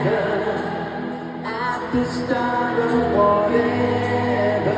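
Live pop band playing a slow song in an arena, with a man singing over held keyboard chords. A low bass note comes in about three seconds in.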